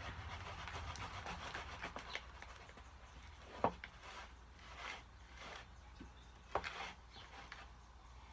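A spoon stirring and scraping a stiff mix of cornstarch and hand lotion in a bowl, with two sharp knocks of the spoon against the bowl.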